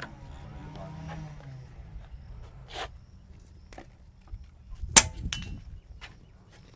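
A single sharp shot from an air rifle firing a pellet, about five seconds in, with a fainter click a couple of seconds before it.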